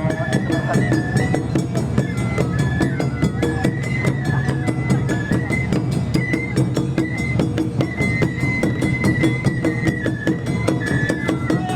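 Japanese festival music: a high melody of held notes stepping up and down over steady drumming and clacking percussion.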